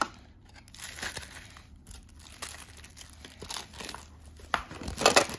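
Plastic packaging wrap being handled and crumpled, crinkling irregularly, with a louder stretch of crackling near the end.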